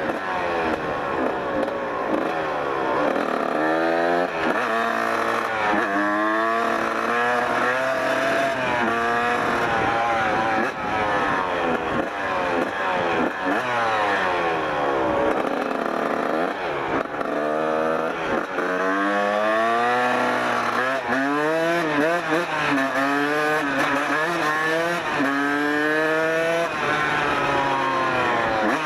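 1994 Kawasaki KX 125's single-cylinder two-stroke engine under way, revving up in short climbs through the gears with a drop in pitch at each shift. In the middle it falls off as the bike slows, then climbs through the gears again.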